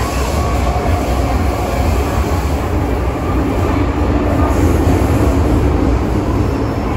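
MTR M-Train metro train heard from inside the car while running at speed: a loud, steady rumble of wheels and running gear with a faint steady whine over it.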